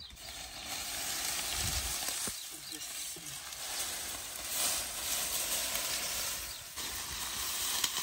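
Dry reed stalks rustling and crackling as they are handled and pressed into a tied bundle.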